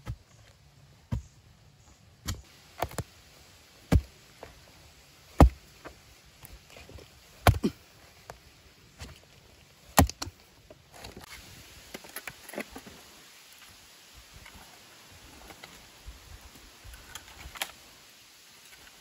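Long-handled hoe chopping into damp clay soil: about eight sharp strikes at uneven intervals of a second or so over the first ten seconds. After that, softer scraping and crumbling as loose soil is pulled out.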